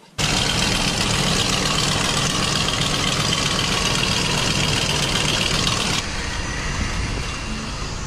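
Ford pickup truck's engine idling steadily, heard up close at the open hood. It cuts in abruptly just after the start and drops a little in level about six seconds in.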